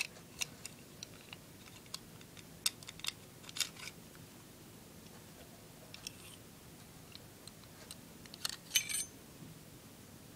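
Faint, scattered clicks and light taps of an airsoft Colt M1911A1 gas blowback pistol's slide and outer barrel being handled, with a quick cluster of clicks near the end.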